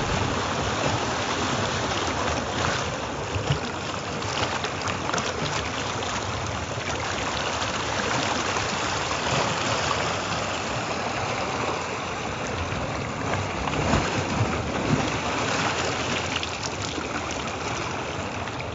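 Water washing and splashing against shoreline rocks, a steady rushing noise broken by a few brief knocks.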